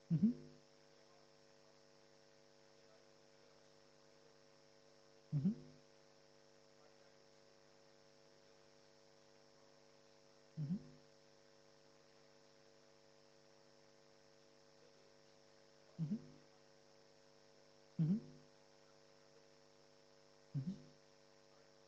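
Steady electrical mains hum with a buzzy stack of overtones, broken six times by short, falling voice sounds like brief murmured acknowledgements.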